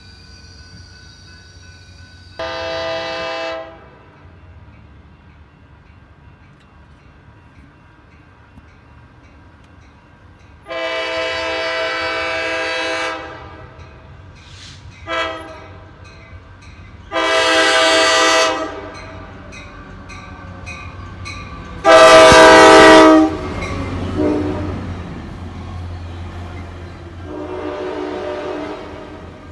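Coaster commuter train's air horn sounding six blasts as it approaches, one of them very short, the loudest about three-quarters of the way through. After that blast the low rumble of the bi-level cars rolling past rises beneath the horn.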